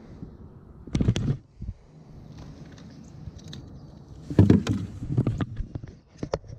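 Knocks and thumps on a plastic kayak as a just-caught largemouth bass is handled aboard. There are two clusters of bumps, about a second in and again around four and a half seconds, with a few light clicks near the end.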